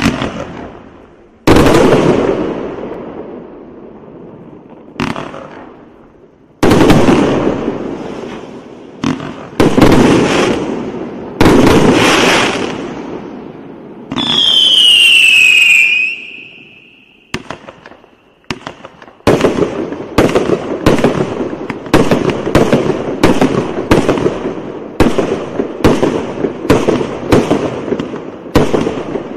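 A 215-shot firework cake firing: loud separate shots, each dying away over a second or two. About fourteen seconds in comes a two-second whistle falling in pitch, and from about nineteen seconds the shots come fast and even, about two a second.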